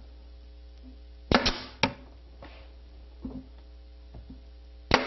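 Nail gun firing nails into the wood: two sharp shots in quick succession about a second and a half in, another just after, and one more near the end, with lighter handling clicks between.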